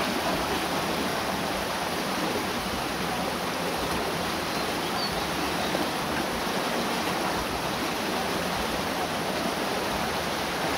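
Water rushing steadily through a stone mill channel and sluice gate, an even, constant rush with no change.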